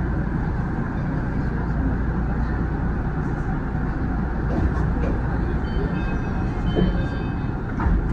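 Tama Toshi Monorail train standing at the platform, its running gear and onboard equipment giving a steady low hum and rumble. A few faint high tones come in about six seconds in.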